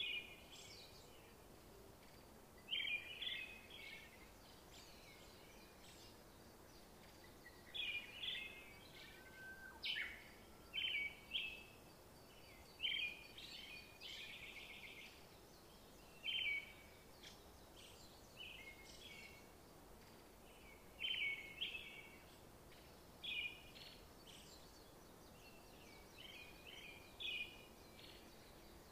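Birds chirping: short twittering phrases every second or few, over a faint steady background hum.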